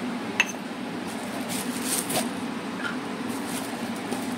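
Spice containers being handled on a kitchen counter: one sharp clink about half a second in, then brief rustling around two seconds in, over a steady low hum.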